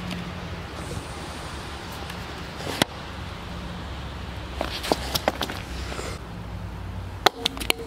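Outdoor background noise with a steady low hum, broken by a few sharp clicks and taps: one about three seconds in, a cluster around five seconds, and more near the end.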